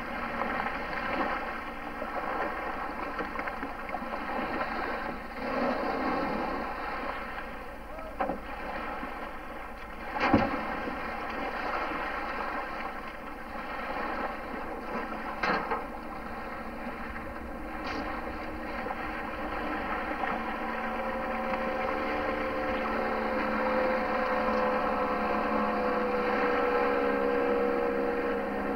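Motorboat engine running steadily while towing a water skier, its note growing louder and clearer over the last third. A few sharp knocks sound along the way, the loudest near the middle.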